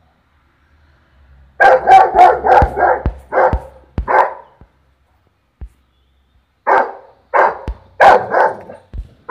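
St Bernard barking at a peacock: a quick run of about eight barks starting about a second and a half in, a pause of about two seconds, then about five more spaced barks near the end.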